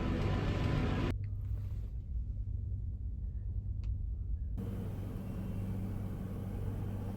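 Low, steady hum and rumble of a large ferry's engines, carried through the ship. The lighter background noise above it changes abruptly about a second in and again a little past four seconds.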